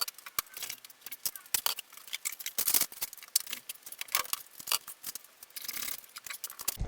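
Car wheels being lifted down from storage and handled: irregular clattering, rattling and scraping, with many sharp clicks coming in several louder clusters.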